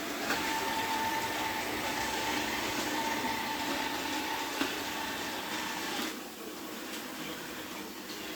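Vacuum cleaner running with a steady motor whine over the rush of air; about six seconds in, the sound drops and the whine fades.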